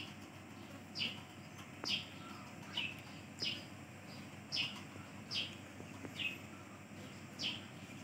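Blue-crowned hanging parrot (serindit) giving short, sharp, high calls that drop in pitch, about one a second, nine in all.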